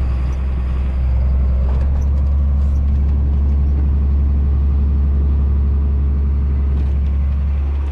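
Case IH combine running steadily during soybean harvest: a continuous low engine and machinery drone, slightly louder from about a second in.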